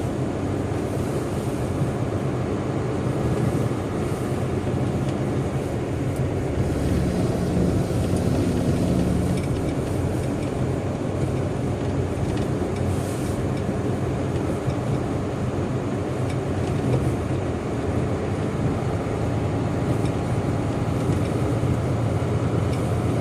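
Steady low rumble of airport ramp traffic, with aircraft engines running at idle.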